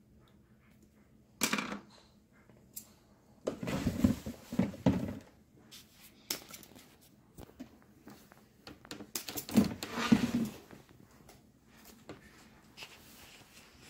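Handling noises from hand work on telephone wiring: small wires, cable and plastic jack parts rustling and knocking, with a few louder bumps and scrapes about a second and a half in, around four to five seconds in, and again around ten seconds in.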